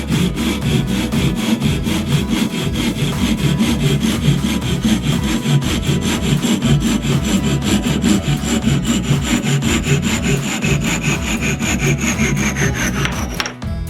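A saw cutting through wood with steady, rapid strokes, stopping abruptly shortly before the end.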